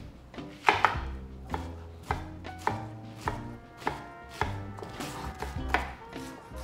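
Chef's knife dicing a white onion on a wooden cutting board: the blade cuts through the onion and knocks on the board about twice a second.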